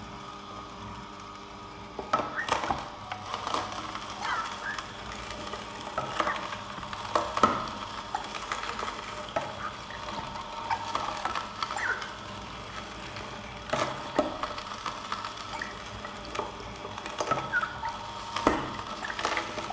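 Oscar DA1000 low-speed masticating juicer running with a steady motor hum, its auger crushing chunks of Jerusalem artichoke with a continual crunching crackle and a sharp crack every few seconds.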